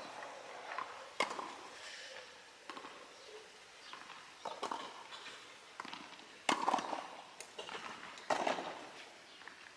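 Tennis rally: a series of sharp knocks from tennis balls being struck by rackets and bouncing on the court, coming at uneven intervals of about a second, the loudest two about two-thirds of the way through.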